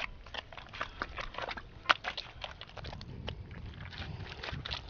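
Wet tidal-flat mud squelching and smacking in short, irregular clicks as hands knead and pack it into a mound over an octopus burrow, sealing its breathing hole.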